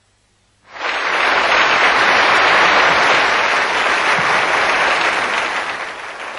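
An audience applauding. The clapping starts suddenly about a second in and slowly dies down near the end.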